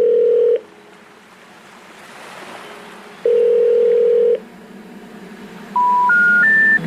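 Telephone line tones: a steady tone for about half a second at the start and again for about a second midway. Near the end come three short tones stepping upward, the special information tone that comes before a 'number not in service' recording.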